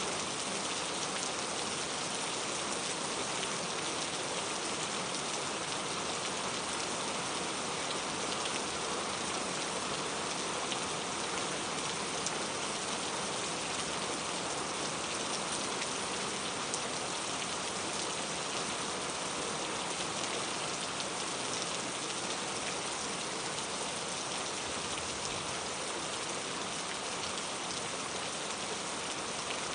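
Steady rain falling, an even hiss of many drops hitting surfaces, with no change in strength.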